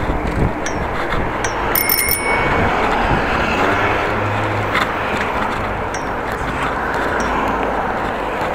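A bicycle bell rings once, about two seconds in, a bright ring of several high tones that fades within about half a second. Steady wind and road rush from riding goes on underneath.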